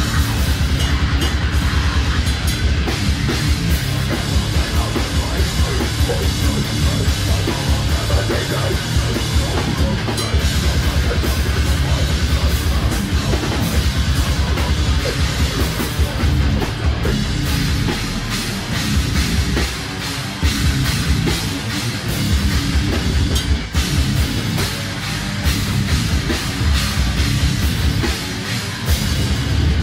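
Heavy metal band playing live at full volume. A drum kit pounds out fast, dense kick-drum beats under heavily distorted guitars and bass.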